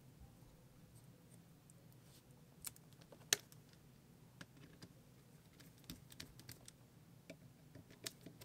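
Faint, scattered clicks and taps of metal parts as a TSPROF Blitz sharpening system is handled, its knife clamp and guide-rod stone arm being set up. One sharper click stands out about three seconds in.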